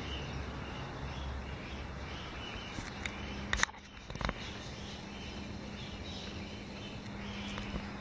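Outdoor dawn ambience: faint distant bird calls and insect noise over a steady low background rumble, broken about three and a half seconds in by a few sharp clicks and knocks.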